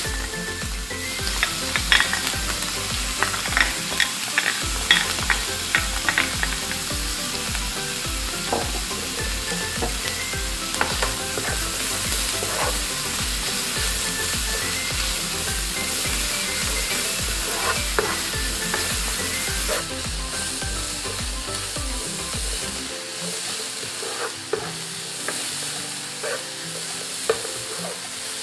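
Bacon and chopped red onion sizzling in a nonstick frying pan, stirred with a spatula that scrapes and taps against the pan. The sizzle eases somewhat about two-thirds of the way through.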